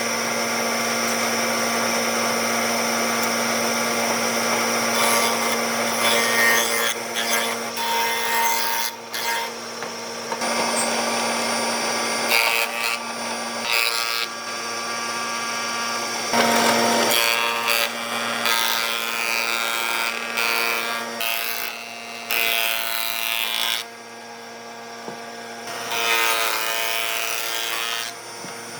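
Power tool working old railway sleeper wood: a steady motor hum under harsh rasping and sawing noise. The noise breaks off and changes abruptly several times.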